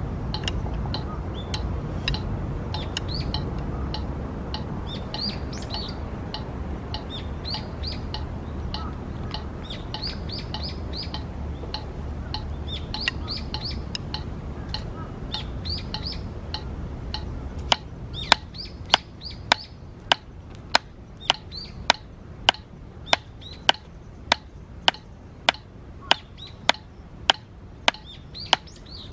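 Small birds chirping over a low rumble; about 18 seconds in, drumsticks begin striking a drum practice pad in a steady run of single sharp taps, about two a second, louder than the birds.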